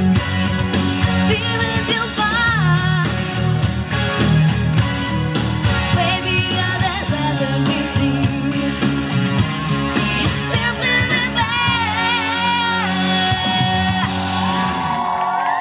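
Woman singing a pop-rock song into a microphone over loud amplified accompaniment with a steady bass line; the accompaniment stops right at the end.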